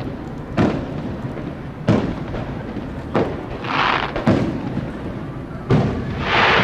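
Aerial fireworks shells bursting in a steady sequence: five sharp booms about one and a quarter seconds apart, two of them followed by a short hissing rush.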